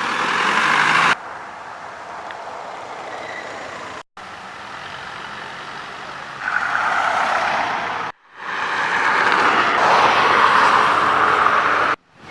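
Street noise of motor vehicles and trucks, in several short shots cut together with brief dropouts between them.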